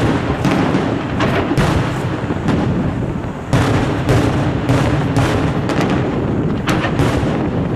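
Aerial firework shells bursting in a professional display: a loud run of sharp bangs about twice a second, each one echoing, over a continuous low rumble.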